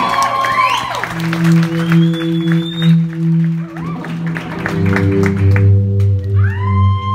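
Live band playing long held chords, with a lower chord coming in about halfway and a pitched sweep rising near the end. Faint crowd noise and claps run under it.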